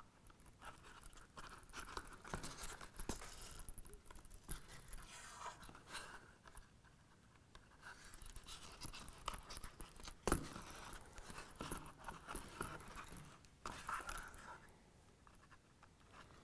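Faint rustling and scraping of hands saddle-stitching a leather case, pulling thread through the stitch holes with two needles, with one sharp click about ten seconds in.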